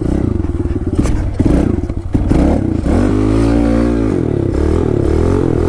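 Kawasaki KLX110L pit bike's small single-cylinder four-stroke engine running hard while riding on snow, its revs climbing to a peak and dropping back about three seconds in, with rattling clatter from the bike.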